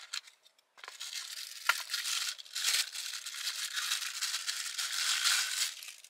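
Crinkling and rustling of a small cardboard-and-plastic package being opened by hand, with one sharp click a little under two seconds in.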